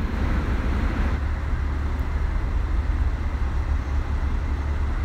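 BMW Z4's powered retractable hardtop folding down, its mechanism running steadily over a low rumble.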